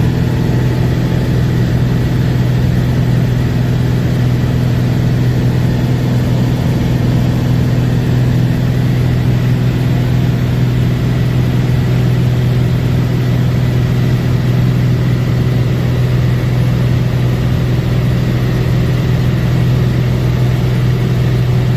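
Cessna 206's piston engine and propeller running steadily at constant power: a loud, even, low drone that holds one pitch throughout.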